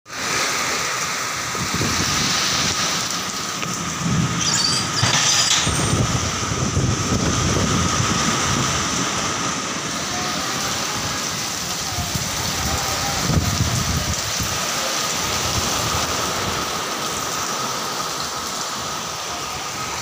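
Heavy rain pouring down in strong, gusting wind. The gusts hit the microphone as low rumbles, strongest about four to six seconds in and again around thirteen seconds.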